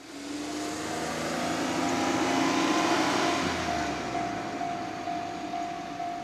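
Japanese railway level-crossing warning bell ringing repeatedly, a steady electronic ding about twice a second that stands out clearly from about halfway through. Under it, a loud rushing rumble swells to a peak about three seconds in and then eases off.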